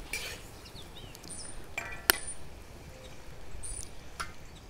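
Metal spatula clinking against a cast iron wok, one sharp clink about two seconds in, over the faint sizzle of chicken frying in oil. Birds chirp briefly a couple of times.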